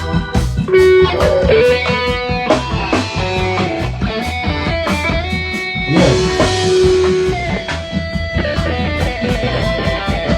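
Live band playing: electric guitar lines with bent, sliding notes over a steady drum kit beat and bass.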